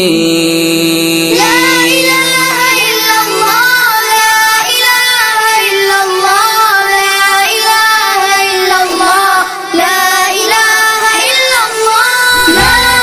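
Music with a high, child-like singing voice carrying a melody.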